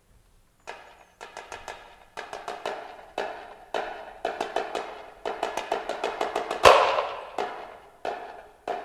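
Marching snare drum played solo: after a brief silence, fast runs of crisp strokes and short rolls in clusters, with one much louder accent about two-thirds of the way through.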